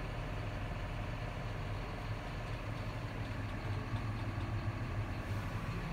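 John Deere 6215R tractor's six-cylinder diesel engine running steadily, heard as a low even hum from inside the cab.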